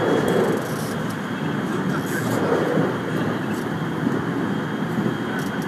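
JR West 223 series electric train running along the track, heard from inside the front of the car: a steady rumble of wheels on rails with a few light clicks.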